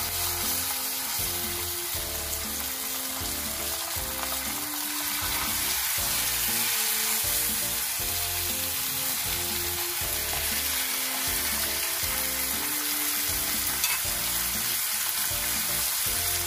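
Whole trevally sizzling steadily in melted margarine on a hot nonstick grill pan as they are laid down to grill.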